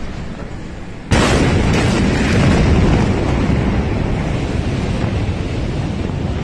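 A massive explosion hits suddenly about a second in, and its blast goes on as a loud, unbroken rumble with no pause.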